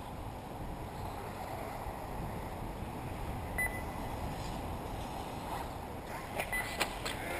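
Steady rumbling wind noise on the microphone, with a short run of sharp clicks near the end.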